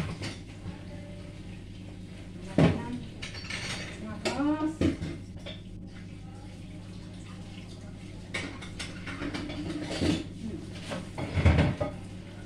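Kitchen dishes and metal utensils being handled, with a few sharp clanks and knocks scattered through, over a steady low hum.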